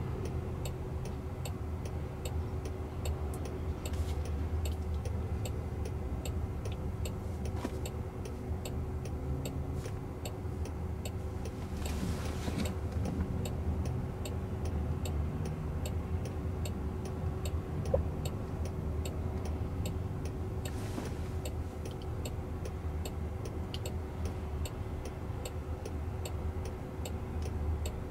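Steady, evenly paced clicking of a car's turn signal inside the cabin of a car stopped at an intersection, over a low steady hum of traffic and cabin noise.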